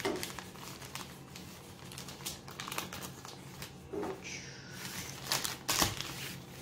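Plastic poly mailer bag crinkling and rustling as it is handled, with scattered light clicks.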